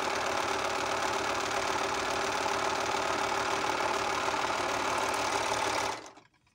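Juki MO-50e overlock (serger) running steadily as it stitches a test seam through fabric, a fast even mechanical whir that stops abruptly about six seconds in. It runs smoothly now that its broken needle plate has been replaced.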